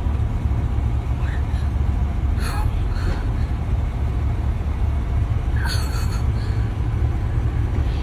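Steady low rumble of an idling SUV engine, heard from inside the vehicle. A girl's voice breaks in briefly with emotional gasps and sobs about a second in, again around two and a half to three seconds, and near six seconds.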